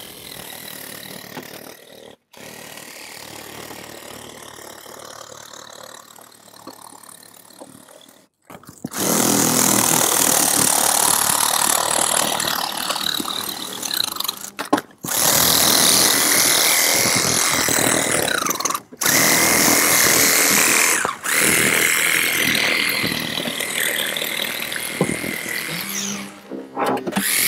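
Battery-powered Holmatro hydraulic rescue tool running, a loud hiss with a steady high whine from its motor and pump, as the fender is cut and spread off. It is quieter at first and runs loud from about a third of the way in, with a few short breaks.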